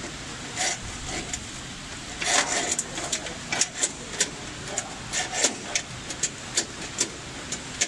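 Hands working a cable into the plastic cable channel of a fiber laser cutting machine: irregular clicks and rubbing of plastic and cable, with a denser burst of rustling about two seconds in.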